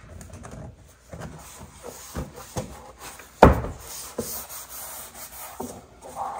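Hands rubbing and pressing a vinyl plank onto a wooden stair riser to bond it with contact cement, with several knocks as it is pushed into place, the loudest about three and a half seconds in.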